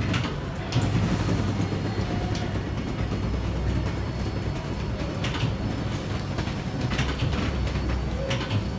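Electric hospital bed's motor running steadily, a low hum, as the backrest is raised by remote control.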